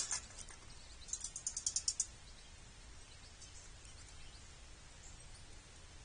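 A squirrel landing on a metal wire-cage tube feeder with a sharp clank at the start, followed about a second in by a bird's quick trill of about nine high notes, and faint bird chirps after it.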